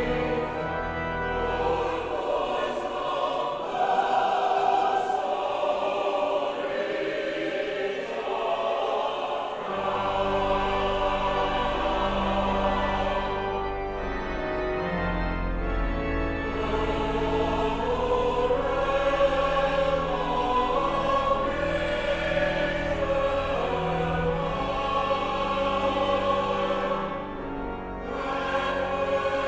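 Choir singing a slow piece in long held chords. Deeper low notes join about ten seconds in.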